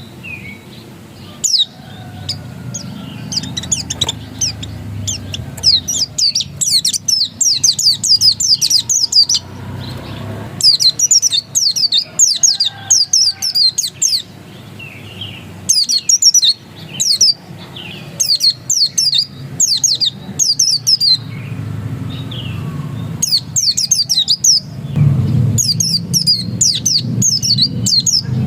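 A pleci dakun, a white-eye, singing its vigorous 'ngotot' song: bouts of rapid, high, twittering notes, each a second or a few seconds long, broken by short pauses. A steady low hum runs underneath.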